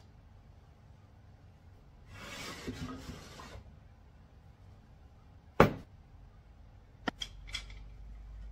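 Wooden table parts handled on a wooden tabletop: a scraping rustle about two seconds in, then one sharp, loud wooden knock a little past halfway, and a few light clicks near the end.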